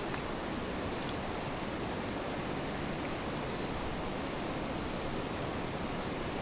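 Steady outdoor rushing noise, even and unbroken, with a fluttering low rumble.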